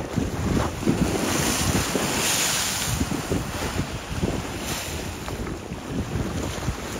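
Wind buffeting the microphone over the wash of choppy lake waves, with a louder rush of breaking water about two seconds in.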